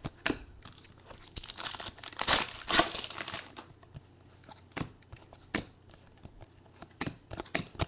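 Foil trading-card pack wrappers crinkling and tearing as a pack is opened and the cards handled. The crinkling is densest about a second to three seconds in, then thins to scattered crackles and clicks.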